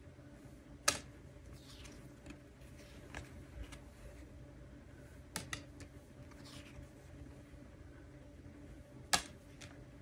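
Stiff paper message cards being handled on a wooden tabletop: two sharp taps as cards are set down, about a second in and near the end, with lighter clicks and soft sliding swishes of card between. A faint steady hum lies underneath.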